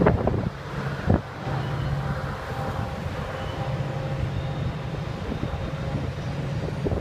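Double-stack container freight train rolling past at a distance: a steady low rumble with faint held tones. Wind gusts buffet the microphone in the first second or so.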